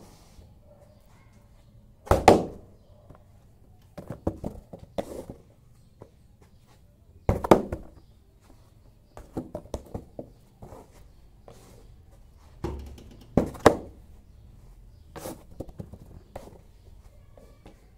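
Irregular dull thumps and knocks from bare feet kicking and stamping. The loudest come about two seconds in, about seven and a half seconds in, and around thirteen to fifteen seconds, with clusters of lighter taps between.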